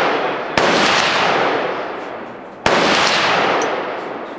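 Two gunshots about two seconds apart, one about half a second in and one near the three-second mark, each sharp crack followed by a long fading tail.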